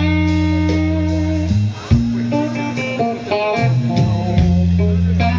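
Live rock band playing an instrumental passage: a guitar melody over held bass notes.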